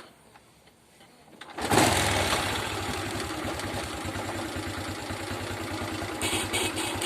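Motorcycle engine starting about a second and a half in, then idling steadily. Near the end the old horn is pressed about four times, giving only short, weak 'kak kak' bursts instead of a proper honk: the horn is broken and due for replacement.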